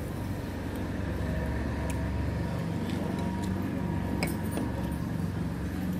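A car passing on the street, a low engine and road rumble that swells a little about a second in, with a few light clicks on top.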